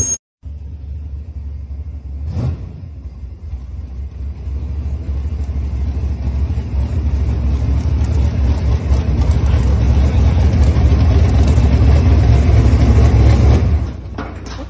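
Motor of a pickup truck converted into a pontoon boat, running with a low rumble that builds steadily louder for about ten seconds and then drops off near the end. A brief knock sounds about two seconds in.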